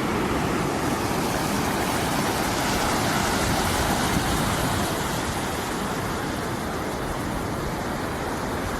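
Steady rushing noise, strongest low down and easing slightly in the second half.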